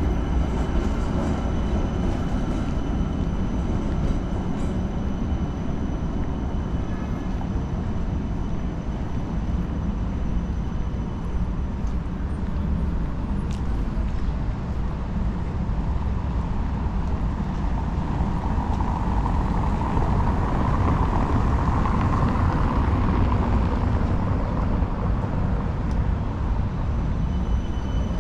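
City street ambience: a steady low rumble of trams and road traffic, swelling a little about two-thirds of the way through.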